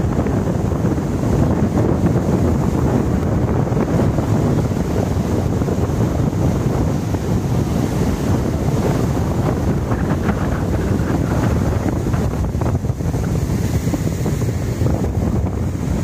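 Rough sea surf breaking and washing against a boulder seawall, with strong wind buffeting the microphone.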